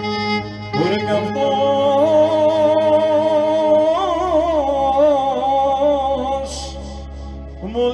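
Live Greek folk music: an electric keyboard holds a steady low accompaniment while a clarinet and a man's singing voice carry a wavering, ornamented melody.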